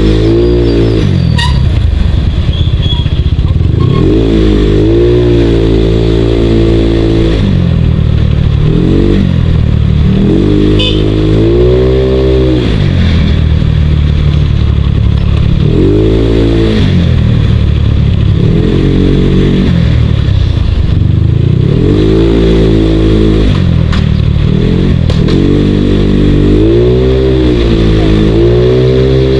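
Motorcycle engine running on the move, its pitch rising and falling over and over as the throttle is opened and eased off.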